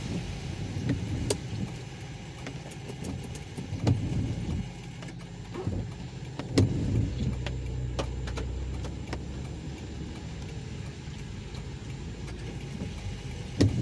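Car driving slowly on a wet road in the rain, heard from inside the cabin: a steady low rumble of engine and tyres, with a few short knocks spread through it.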